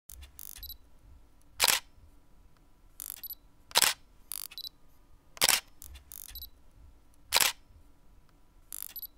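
Camera shutter sound effects: four sharp shutter clicks about two seconds apart, each near a cluster of lighter, higher clicks, over a faint hum.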